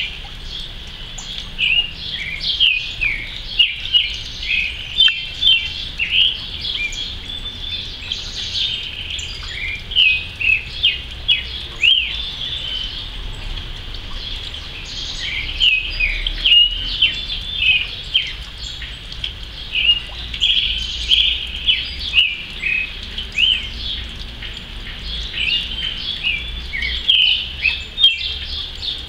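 Creamy-bellied thrush (sabiá-poca) singing: a long, varied song of short, rapid whistled notes and quick slurs, delivered in phrases with brief lulls between them.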